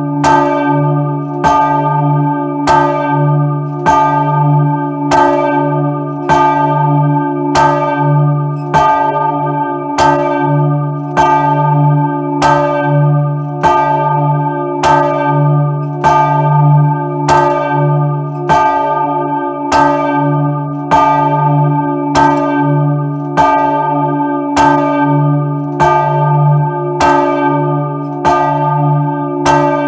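Large church bell, the bell 'Maria', swinging as it is rung by hand with a rope. Its clapper strikes in a steady, even rhythm, a little over once a second, and each stroke rings on into the next over a continuous deep hum.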